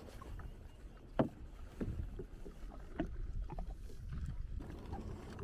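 Water lapping against the hull of a drifting Sea-Doo Fish Pro jet ski, with a few light knocks and clicks; the sharpest comes about a second in.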